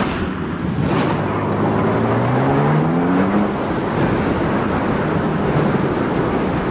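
Toyota Tacoma TRD Pro pickup engine revving up under load: about a second in its pitch climbs steadily for two to three seconds, then holds. A constant heavy rush of blizzard wind and blowing snow runs underneath.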